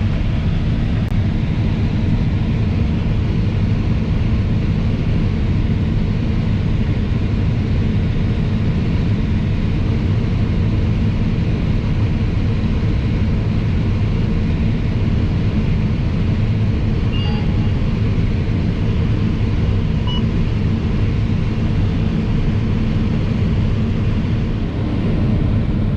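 New Holland CR 9.90 combine running steadily while harvesting corn, a constant low engine and threshing drone with no change in pitch or level.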